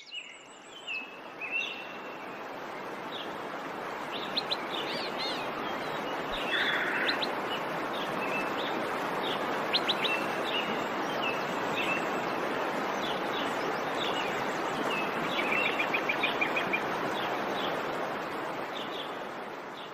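Birds chirping and calling repeatedly over a steady background hiss, which fades out near the end.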